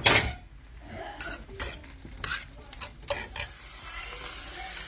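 A metal utensil knocking, scraping and clinking in a frying pan while chicken and shrimp cook, with a loud knock right at the start. A steady sizzle takes over for about the last second and a half.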